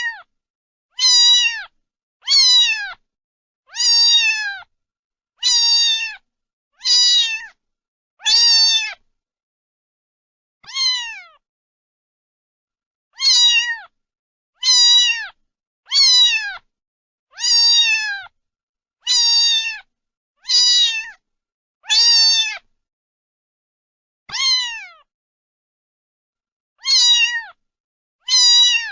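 A domestic cat meowing over and over, about seventeen separate meows, each under a second long and falling in pitch at the end. A longer pause falls about ten seconds in and another near twenty-five seconds.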